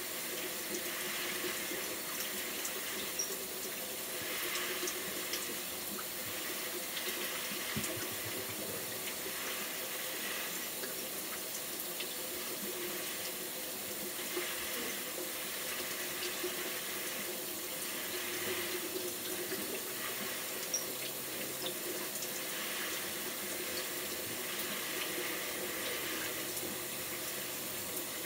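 Water running steadily from a bathroom tap or shower.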